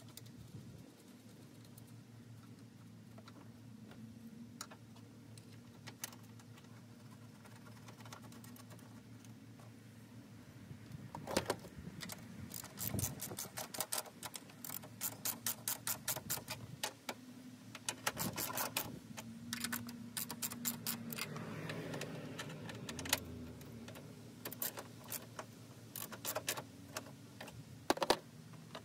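Socket ratchet clicking in quick runs as a bolt is turned down, with scattered clicks and knocks of parts being handled.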